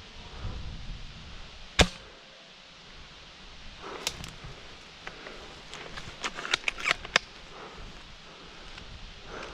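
Airsoft gun shots: one sharp, loud crack about two seconds in, a couple more around four seconds, then a quick run of about half a dozen shots between six and seven seconds in.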